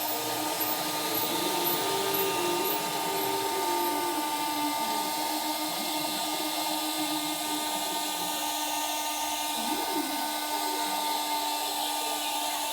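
Small 9-watt motor of a homemade plastic-bottle vacuum cleaner running with a steady whine.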